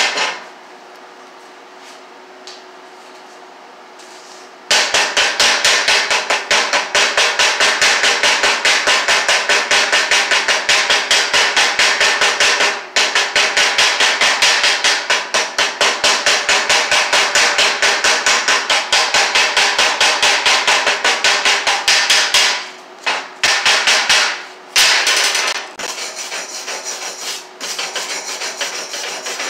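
Hammer striking a freshly laid stick-weld bead to knock off the slag. It starts about five seconds in as a rapid, steady run of metallic taps, about five a second, then turns to sparser, quieter strikes near the end.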